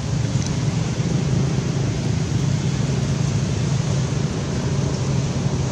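Steady low rumbling noise with a hiss above it, even in level, with no distinct calls or knocks.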